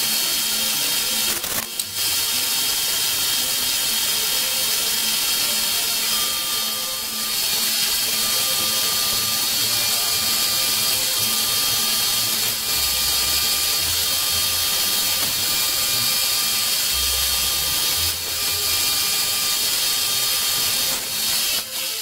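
End mill in a CNC vertical milling machine cutting an aluminum plate: a steady high whine over a loud hiss, dipping briefly a few times and dropping off at the very end.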